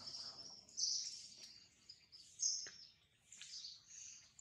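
Birds chirping in the background: bursts of high chirps, the loudest about a second in and again about two and a half seconds in, with fainter ones after.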